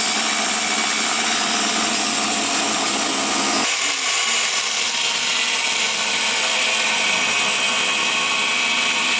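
Electric angle grinder with a thin cut-off wheel cutting through quarter-inch stainless steel plate: a loud, steady grinding hiss over the motor's whine. The tone changes a little under four seconds in.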